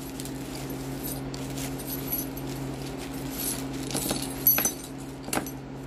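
Small charms and bones clinking and rattling against each other as they are shaken out of a burlap sack, with a few sharper clicks in the second half.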